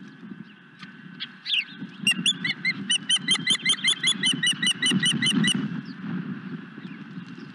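Osprey calling: a rapid run of about fifteen short, high whistled chirps, about five a second, starting about two seconds in and stopping about three and a half seconds later, over a steady low rumble.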